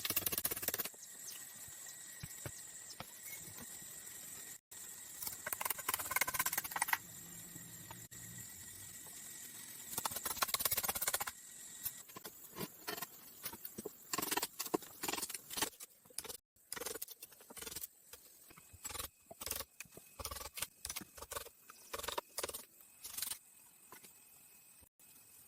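Rustling and scraping in a few short bursts, then a run of quick irregular clicks and taps.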